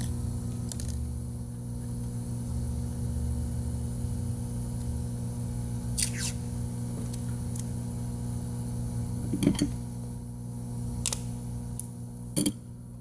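Steady electrical hum from bench equipment, with a few light clicks and taps of small tools about halfway through and near the end.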